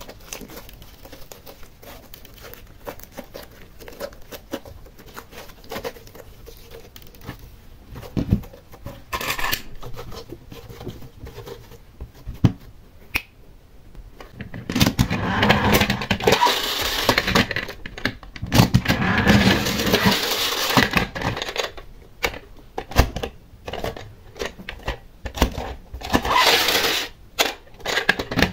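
Hands kneading and pressing a soft slime, giving a run of small sticky clicks and pops, quieter at first and louder and denser from about halfway on.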